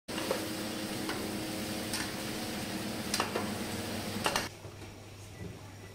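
Mutton pieces sizzling in hot oil with fried onions in a large steel pot while a metal ladle stirs them, clinking against the pot several times. About four and a half seconds in the sizzle stops and a quieter low steady hum is left.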